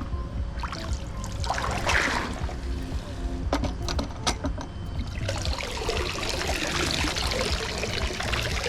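Water splashing, then pouring and streaming out of an Aiper Seagull 600 robotic pool cleaner as it is lifted out of the pool, with a few knocks of handling early on.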